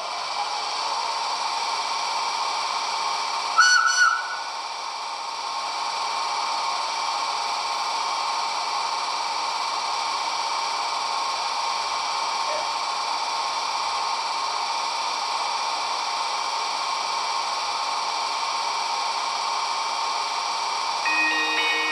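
Sound decoder of a standing SBB model electric locomotive playing its idle sound through its small speaker: a steady hiss of fans with a fixed hum. About four seconds in there is a short high tone with a click, and near the end a sound of several steady tones starts.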